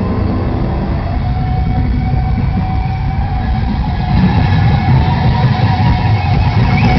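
Heavy metal band playing live at full volume through an overloaded camera microphone: a dense, distorted wall of guitars, bass and drums with a held high guitar tone, getting a little louder about four seconds in.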